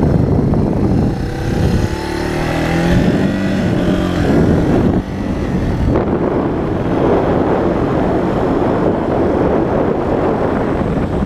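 Yamaha Serow 225 single-cylinder four-stroke trail bike being ridden, its engine pitch rising and falling over the first few seconds as it pulls away, then running steadily with heavy wind noise on the microphone.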